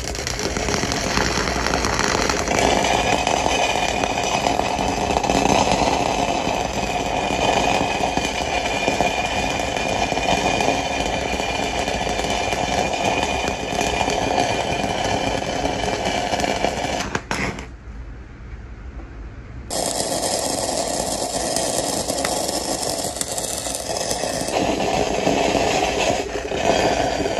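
Stick-welding arc of a 3/32 E6010 electrode at about 70 amps running a root pass on 4-inch steel pipe: a steady, harsh crackle and sizzle. About seventeen seconds in the arc breaks off for about two seconds, then restrikes and crackles on.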